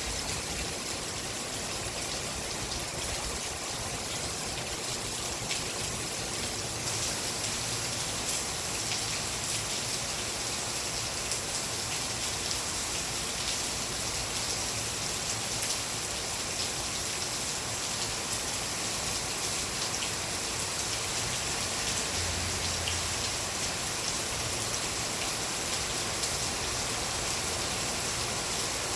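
Steady rain falling: a dense, even hiss full of small drop taps, getting a little louder about seven seconds in.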